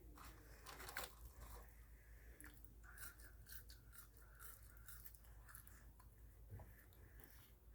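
Faint close-up chewing: soft crunches and small wet mouth clicks, scattered and irregular.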